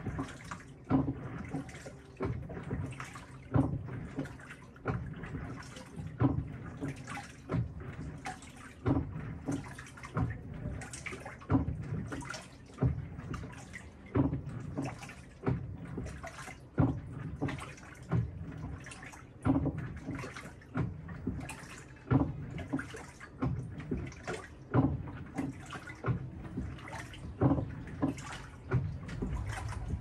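Panasonic top-loading washing machine agitating a load of laundry in water, with the water sloshing in regular surges about once a second as the pulsator swings back and forth.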